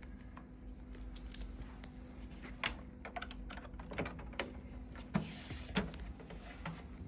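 Irregular light plastic clicks and taps from hands working on an Epson WF-C5890 inkjet printer, over a faint steady hum.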